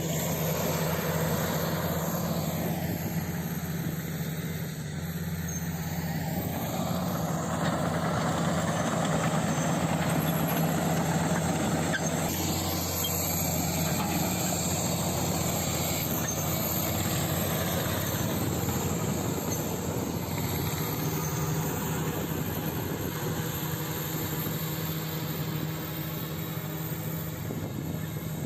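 Komatsu D85SS bulldozer's diesel engine running steadily under a dense haze of machine noise as it clears land.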